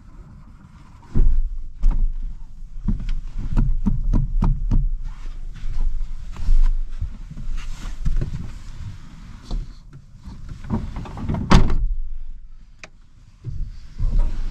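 A series of knocks, thumps and rustling as a person climbs into a pickup's camper-shell bed over the tailgate and shifts gear around, with one loudest thump about three quarters of the way through.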